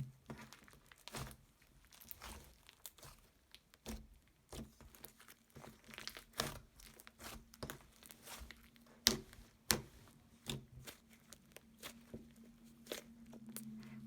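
Hands squishing a creamy slime and crushing the jelly cubes mixed into it: irregular crackles, crunches and small pops, some louder than others.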